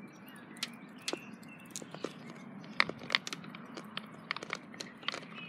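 Irregular light clicks and crinkles of hands handling things close to the microphone, with no steady sound beneath them.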